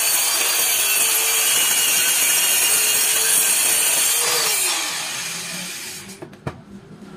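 Handheld electric circular saw cutting through a laminated board, a loud steady cutting noise. About four seconds in the cut ends and the motor winds down with a falling whine, followed by a couple of light knocks.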